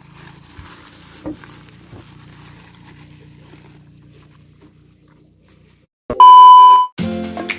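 A faint low steady hum with a few soft clicks, then about six seconds in a single loud steady beep lasting under a second; music begins right after it, near the end.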